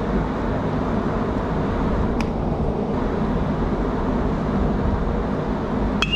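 Steady outdoor background noise, mostly a low rumble, with a sharp click about two seconds in and another near the end.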